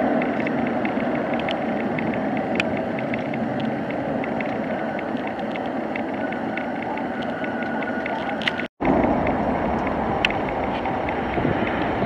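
Steady rushing jet noise from a regional jet touching down and rolling out along the runway. The sound drops out for a moment about three-quarters of the way through, then comes back with more low rumble.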